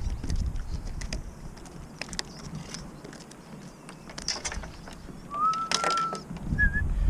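Scattered light knocks and taps on wooden jetty boards, with one whistle-like call, rising then held, about five seconds in.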